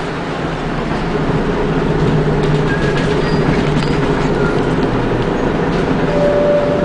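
Scania double-decker bus under way, heard from inside the passenger saloon: a steady engine and drivetrain drone with body rattles. A steady whine joins near the end.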